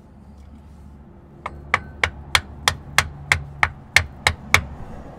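Hammer tapping a new rear differential seal into place on a 2013 Chevrolet Camaro, striking the old seal laid over it as a driver. Eleven sharp, even taps, about three a second, start about a second and a half in.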